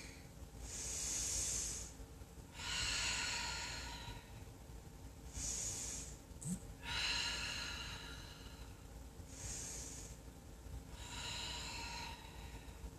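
A woman breathing deeply and audibly, about three slow breaths in and out, each breath a soft hiss of air.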